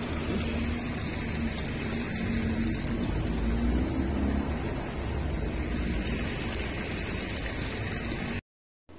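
Steady outdoor city ambience with a low rumble of traffic and general street noise, which cuts off abruptly shortly before the end.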